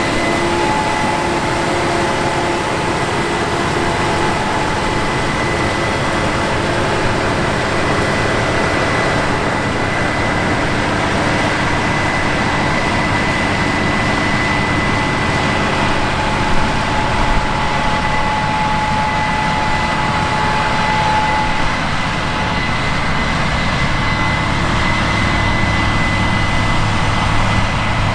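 Heavy diesel farm machinery running steadily in the field: a constant, loud mechanical noise with a steady high whine over it.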